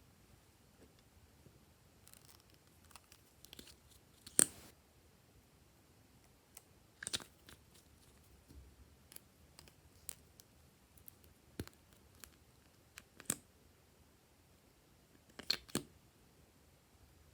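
Glossy slime being pressed and stretched by hand: scattered sticky clicks and small pops, irregularly spaced, with a few louder pops about four seconds in, around seven and thirteen seconds, and a double pop near the end.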